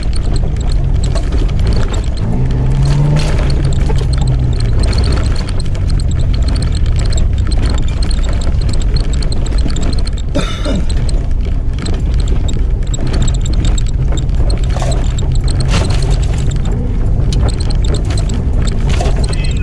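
A 4x4's engine running under load, heard from inside the cabin, with its note rising briefly a few seconds in. Sharp knocks and rattles come as the vehicle bounces over a rutted dirt track.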